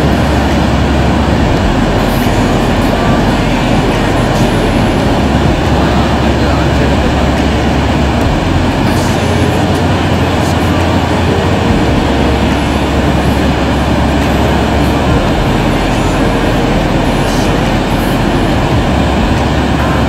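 The American Falls at Niagara pouring: a loud, steady rush of falling water with a deep low rumble underneath, unbroken throughout.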